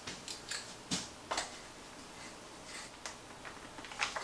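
Scattered light clicks and taps from hands fitting a lug nut onto the wheel of an RC monster truck, with a few sharper clicks about a second in and a small cluster near the end.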